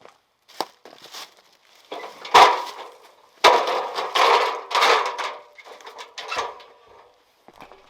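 A string of knocks and clattering, scraping handling noises with a slight ring, loudest and densest in the middle and thinning out toward the end.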